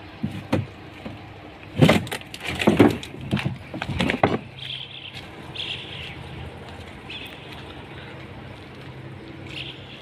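Outdoor ambience: a couple of seconds of loud knocks and rustling, then a few short bird calls over a low steady hum.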